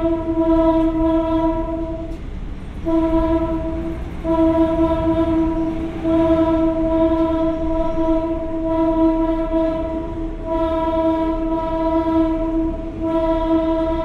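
Train horn sounding a steady single note in long blasts of one to four seconds, broken by short gaps, over a low rumble.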